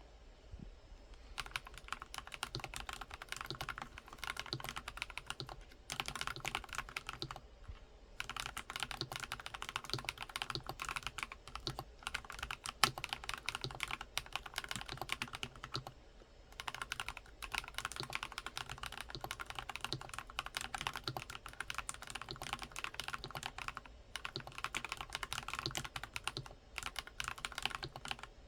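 Fast, continuous typing on a NuPhy Halo65 mechanical keyboard with stock, unlubricated Night Breeze switches: rapid key clacks broken by a few short pauses, with one louder key strike about halfway through.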